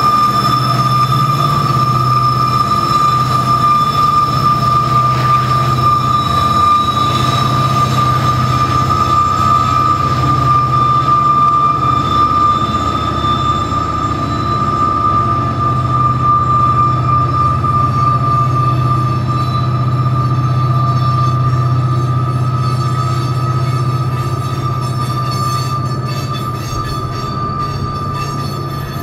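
Heavy coal train crawling uphill over a steel trestle: the wheels give a steady high-pitched squeal over the low drone of the diesel locomotives working hard and the rumble of loaded coal hoppers. It fades slightly near the end.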